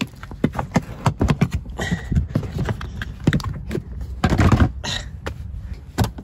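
Rummaging among food and cooking supplies: an irregular run of clicks, knocks and rustles as items and packaging are handled and set down.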